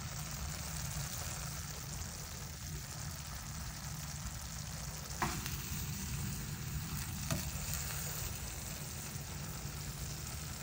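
Pork and string beans sizzling in a pan, a steady frying hiss, with two sharp knocks of a utensil against the pan about halfway through.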